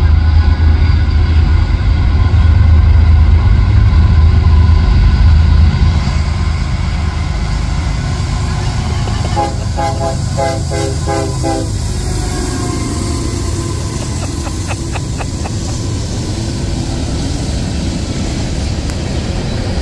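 Freight train passing: a loud low diesel locomotive drone for about the first six seconds, then the steadier rumble of the cars rolling by. About ten seconds in there is a short run of rapid pulsed tones, a few a second, and a handful of sharp clicks follow a few seconds later.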